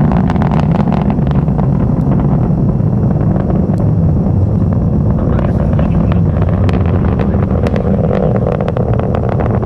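Delta IV Heavy rocket's three RS-68 engines heard from a distance during ascent: a loud, steady low rumble with a dense crackle over it.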